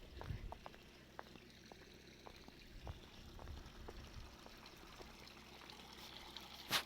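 Faint trickling water from a small forest stream, with scattered light ticks and one sharp click near the end.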